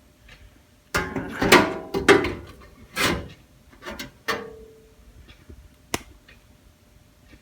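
Metal toolbox parts clanking and rattling as they are handled and set down: a string of knocks from about a second in, one leaving a short ring, then a single sharp click near the end.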